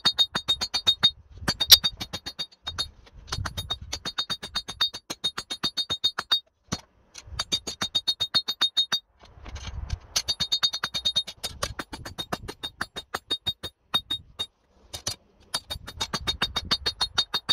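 Hand hammer striking a hot spring-steel bar on an anvil in quick runs of several blows a second, the anvil ringing high and clear between strikes. The runs break off briefly a few times.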